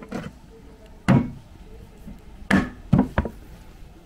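A few sharp knocks, the loudest about a second in and three more close together near the end, from a metal oil tin being closed with its lid and handled.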